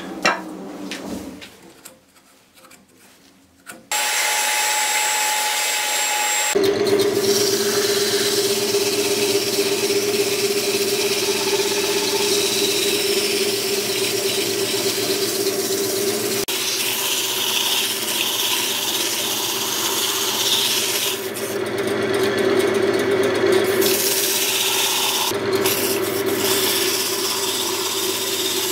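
Wood lathe spinning a silverberry goblet blank while a hand-held tool rubs and scrapes inside the cup, with a steady hum from the spinning lathe. The first few seconds are quiet; then the tool noise starts suddenly and the hum comes in a couple of seconds later.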